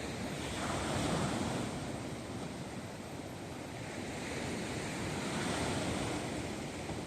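Wind rushing over the microphone in slow gusts, swelling about a second in and again near the end.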